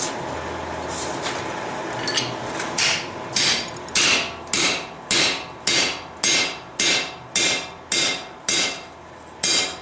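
Hand hammer striking a steel drift to drive it through a hole in a hot steel bar on an anvil, about a dozen ringing blows at a little under two a second. The blows start about two seconds in.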